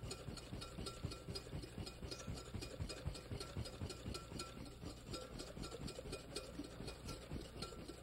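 Wire whisk beating mayonnaise in a large bowl by hand, in quick, even strokes several times a second, as olive oil is worked into the thickening egg-yolk emulsion.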